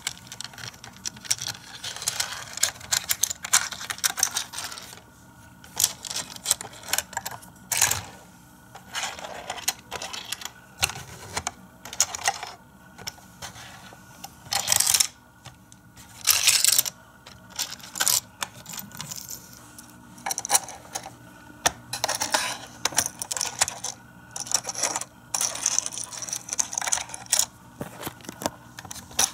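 Hard plastic toy playset being handled: an irregular run of clicks, taps and short clattering rattles as its plastic parts and a small toy car are moved, with a few longer rattles near the middle.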